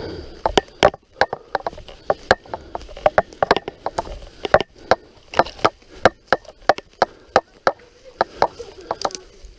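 Irregular sharp clicks and knocks, several a second, from a mountain bike rattling and jolting over a rough forest trail.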